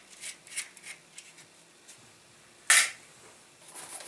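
A backpack and a folding saw being handled while the saw is stowed on the outside of the pack: a few light ticks, one sharp snap about two and a half seconds in, then soft rustling of the pack.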